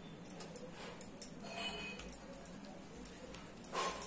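Faint clinking of glass bangles and soft pressing of dough on a counter, with a short louder noise near the end.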